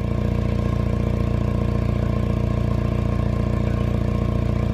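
Riding lawnmower's small engine running at a steady idle, an even unchanging drone just after starting.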